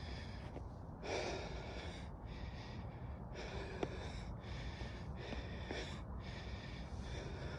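A person breathing hard in and out, one breath about every second, over a steady low rumble of wind on the phone's microphone.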